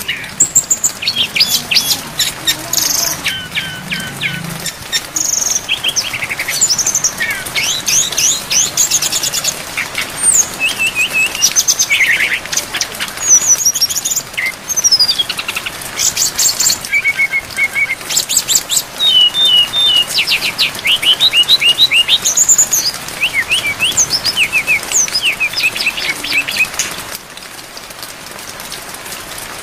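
A brown-chested jungle flycatcher sings a rapid run of varied whistled, sweeping and trilled phrases over a steady hiss of rain. The song stops near the end, leaving only the rain.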